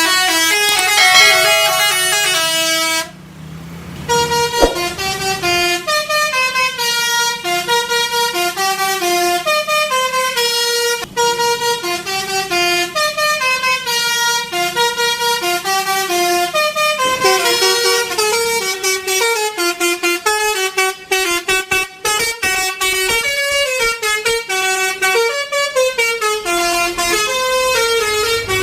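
Bus 'telolet basuri' musical horn playing a fast tune, stepping up and down through several notes a second. The tune breaks off briefly about three seconds in and then resumes.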